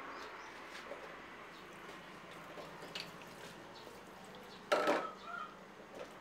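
Tap water running from a spray head and splashing into a stainless-steel sink as hands scrub washing in the foamy water. About three-quarters of the way in, a brief loud squeak with a high tone cuts through.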